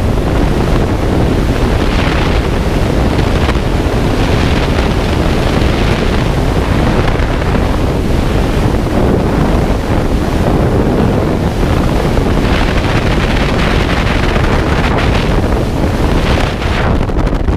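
Loud, steady rush of freefall wind blasting over a skydiver's camera microphone.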